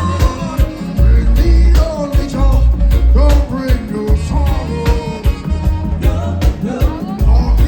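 Live reggae band playing, with heavy bass, a steady drum beat and a lead vocal singing over it.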